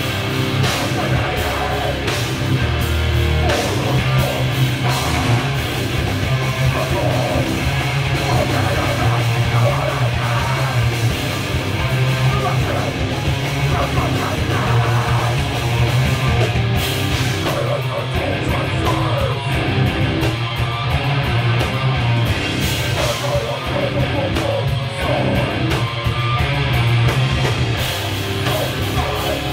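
Live heavy-metal style band playing loud and steady in a small club: electric guitars and bass over a drum kit, with vocals through the PA.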